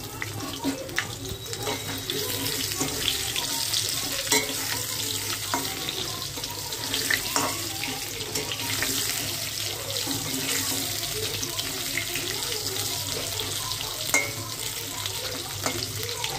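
Potato wedges sizzling steadily in hot oil in an aluminium kadai, with a few sharp clicks of a metal spatula against the pan.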